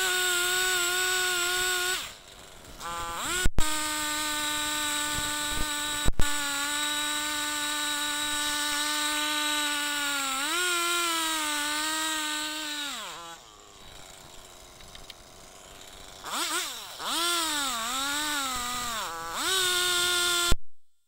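Two-stroke chainsaw engine running at high revs, holding a steady pitch for long stretches, then throttled back to a low idle about two-thirds of the way through and revved up again in a few wavering blips before cutting off abruptly near the end. Two sharp clicks come a few seconds in.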